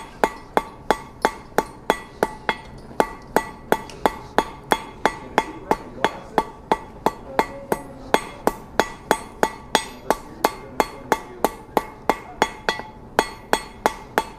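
Hand hammer striking a hot 1/4-inch round mild steel bar on an anvil in a steady run of quick blows, about three a second, each with a short metallic ring. The smith is rounding the bar's end down from an octagon.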